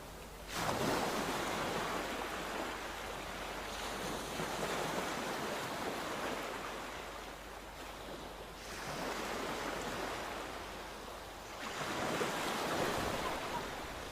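Sea waves breaking and washing onto the shore, a wash of surf that swells about every four seconds.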